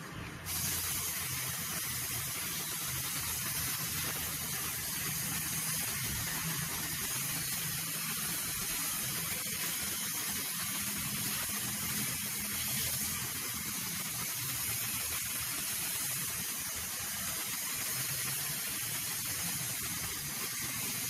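Compressed-air spray gun hissing steadily as it sprays clear matte melamine lacquer. The hiss jumps louder about half a second in, when the trigger is pulled, and then holds even.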